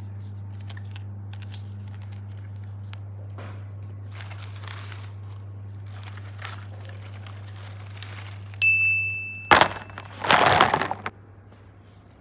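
Faint scattered clicks and rustles of slime and clay being handled over a steady low hum. Near the end, a short ringing tone is followed by loud crunching, crinkling noise lasting about a second and a half.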